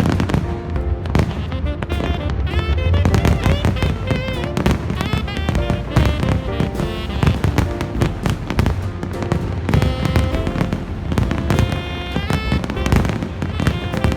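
Fireworks bursting in quick, irregular succession, layered over loud music with a steady run of sustained and gliding notes.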